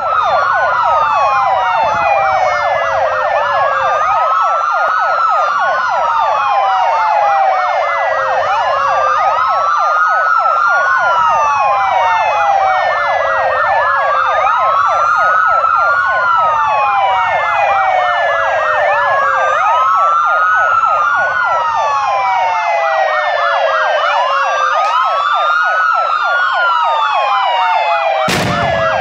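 Several police sirens sounding together: a fast yelp under slower wails that rise and fall over and over, from an approaching convoy of police vehicles and motorcycles. A brief knock sounds near the end.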